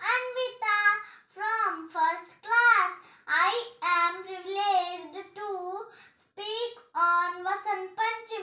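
A young girl singing solo with no accompaniment, in short melodic phrases separated by brief pauses.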